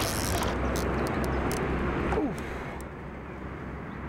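Muffled rushing water noise under a steady low rumble, going duller about half a second in, with a few faint clicks, then quieter from about two and a half seconds in.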